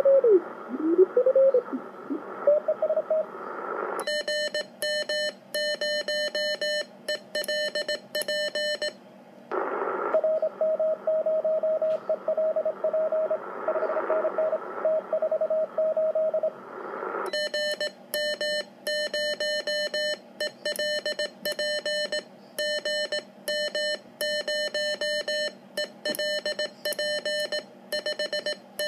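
Morse code (CW) through a President Lincoln II 10-metre transceiver. After a brief whistle that slides in pitch as the clarifier is tuned, the radio's harsh sidetone beeps out a keyed call. From about ten seconds in, the other station's reply comes in as a softer beeping tone over receiver hiss, and from about seventeen seconds the sidetone keys again.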